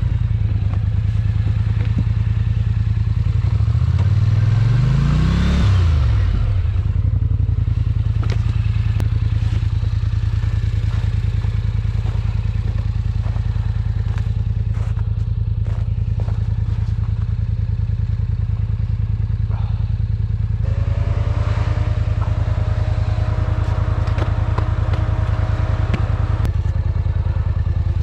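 ATV engine running steadily while riding, revving up and dropping back once about five seconds in, with clatter and knocks from the machine over rough ground. A steady higher whine joins for about five seconds near the end.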